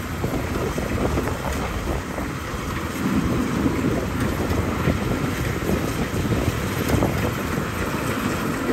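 Zoomlion FH100E rice combine harvester running steadily as it cuts and threshes rice.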